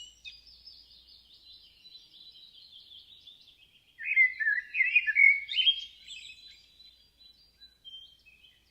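Songbirds singing: faint, fast, high twittering for the first four seconds, then a nearer bird's louder, varied song for about two seconds, followed by a few scattered faint calls.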